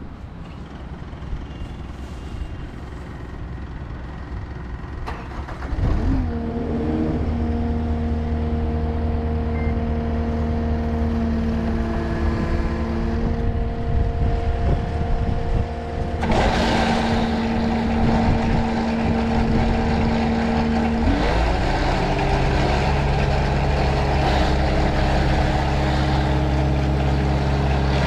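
Caterpillar 289D compact track loader's diesel engine running under load, revving up about six seconds in with a steady hydraulic whine. From about halfway through, a louder gritty churning joins it as the power box rake's rotor grinds through soil and stones. The engine pitch shifts again a few seconds later.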